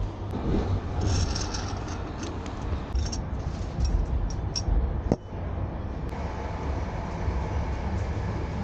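Steady low rumble of a moving PKP Intercity dining car running on the rails, heard inside the carriage. During the first half, light clicks and rustles of a coffee cup, saucer and sugar sachets being handled on the table.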